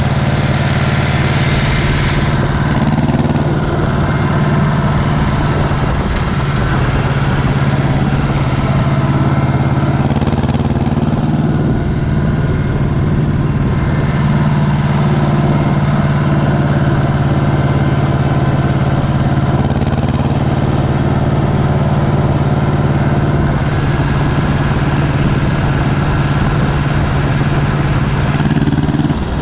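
Ursus C-330M tractor's two-cylinder diesel engine running through a new stainless-steel muffler, holding steady revs with a few slight shifts in pitch. A brief hiss sits on top in the first two seconds.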